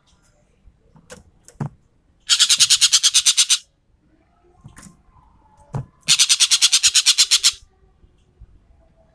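Ekek keling bird giving two loud rattling bursts of rapid notes, about ten a second, each burst lasting about a second and a half, the second starting a few seconds after the first. A few short clicks come before each burst.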